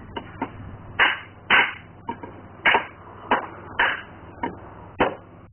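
Hand hammer striking the anvil of a wooden scythe-peening bench, about nine sharp taps at an uneven, unhurried pace, the hammering of scythe-blade peening.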